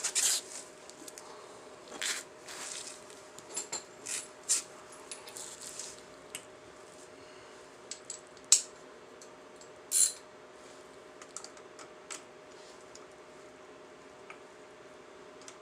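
Hand tools and small metal motorcycle parts clinking and tapping off and on, with the sharpest clinks about eight and ten seconds in, over a faint steady hum.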